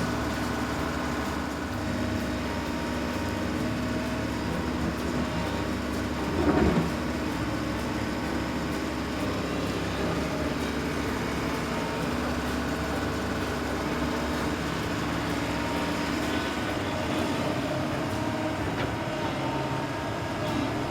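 Cartoon excavator sound effect: a steady engine hum while it digs, with a brief louder swell about six and a half seconds in.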